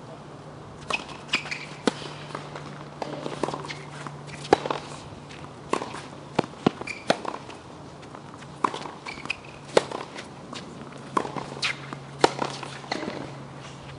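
Tennis rally on a hard court: sharp racket strikes on the ball and ball bounces, a knock roughly every second.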